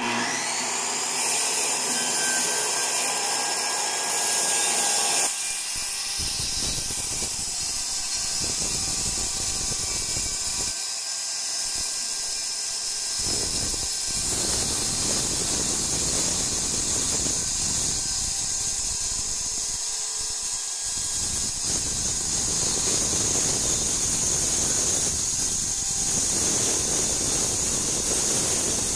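Corded circular saw running under load as it cuts through a plywood subfloor, a steady high-pitched whine with the blade's cutting noise rising and dipping as it is pushed along the line.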